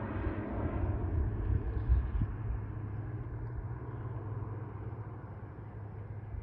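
Beech E90 King Air's twin Pratt & Whitney PT6A turboprop engines droning with a steady low propeller hum as the aircraft climbs away, slowly fading with distance. A brief low thump about two seconds in.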